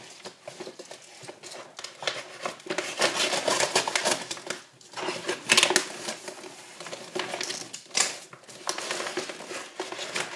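Blue wrapping rustling and crinkling as it is worked off a cardboard box by hand, with hands rubbing and patting the cardboard. Irregular rustles run throughout, with sharper crackles a little past halfway and again near the end.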